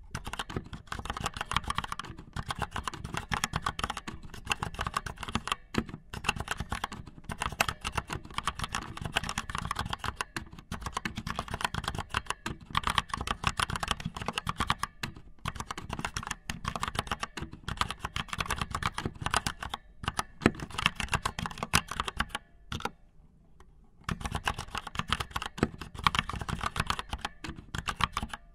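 Rapid, dense clicking that goes on and on, pausing for about a second near the end.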